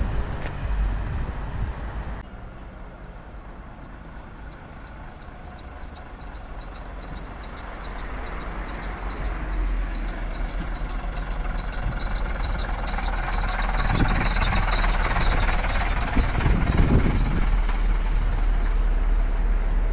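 Routemaster double-decker bus's diesel engine running and growing steadily louder as the bus approaches and draws up close, loudest in the last few seconds with a heavy low rumble.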